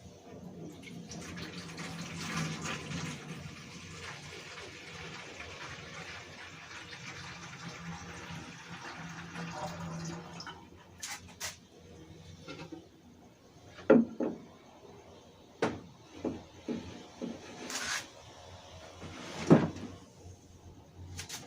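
Water from a dehumidifier's collection bucket being poured into a container: a steady pour for about ten seconds, then a run of knocks and clunks as the containers are handled and set down.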